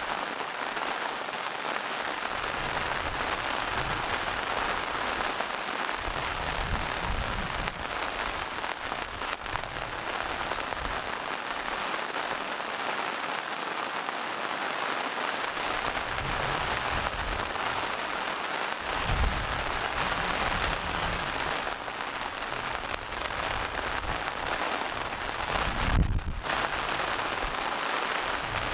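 Steady rain falling in a forest, an even, dense patter. Low rumbles come and go under it, and there is one brief low thump near the end.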